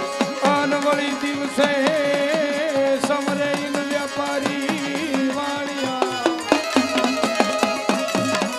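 Gujarati devotional folk music: dak hourglass drums beaten in a fast, dense rhythm, with small hand cymbals. Over them a man sings long, wavering held notes and shifts pitch about six seconds in.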